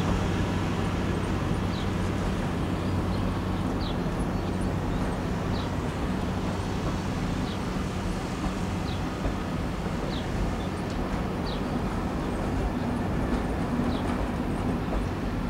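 BB 75300 diesel locomotive's engine running steadily as it pulls a train of Corail coaches slowly out of the station, with the low rumble of the coaches rolling along the track.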